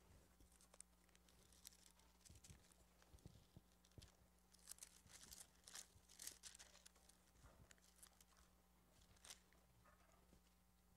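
Near silence with the faint rustle of thin Bible pages being turned, thickest about halfway through, over a low steady hum.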